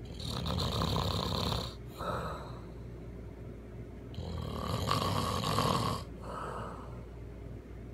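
A man snoring very loudly in his sleep: two big snores about four seconds apart, each followed by a shorter, softer one.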